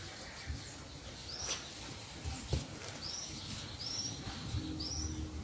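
A bird repeating a short, high, down-slurred chirp four times, with one sharp click about halfway through.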